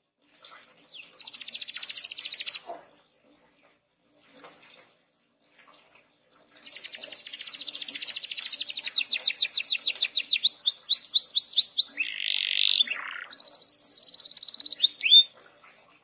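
Domestic canary singing. A short fast trill comes about a second in. Then, from about six and a half seconds in, a long song runs: a fast trill that slows into a run of distinct rising-and-falling notes, a harsher note, another high trill, and a few falling notes at the end.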